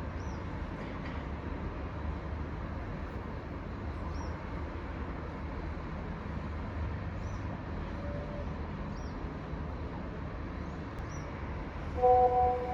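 Steady low background rumble with faint, short high chirps every second or two. Near the end a loud electronic chime sounds, a single pitched tone held for about a second.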